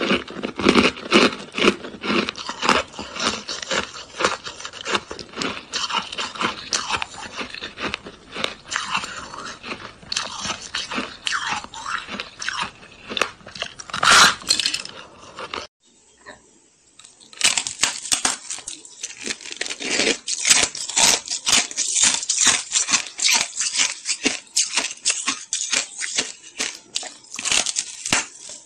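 Hard ice being bitten and chewed, a dense run of sharp, crackling crunches. The crunching stops for about a second and a half just past halfway, then starts again.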